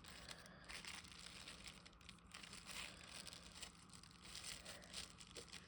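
Faint crinkling of plastic wrap being folded over and pressed down by hand.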